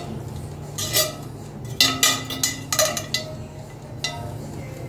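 A few sharp clinks and knocks, some with a short ring, over a steady low hum. They come about a second in and then as a quick cluster around the middle.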